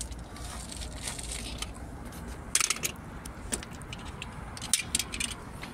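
Plastic water pipe being cut with a hand pipe cutter: scattered sharp clicks and crackles, a cluster about halfway through and several more near the end, over a faint low hum.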